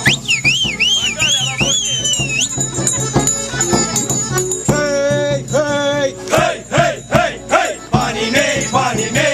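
Small brass hand bell shaken in a steady rhythm through a live Romanian folk dance tune, with a high wavering whistled melody in the first couple of seconds and voices singing the song from about halfway on.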